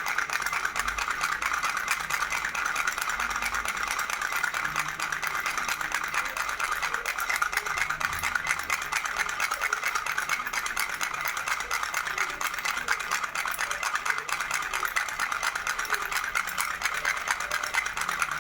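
Baby rattle shaken steadily without a pause, giving a fast, dense rattling.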